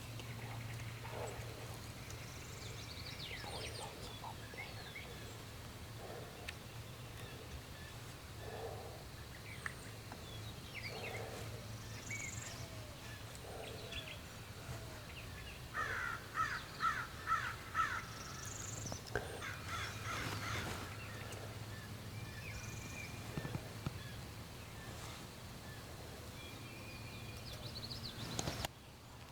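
Birds calling in spring woods, with scattered short chirps. Just past the middle a crow caws about seven times in quick succession, the loudest sound here.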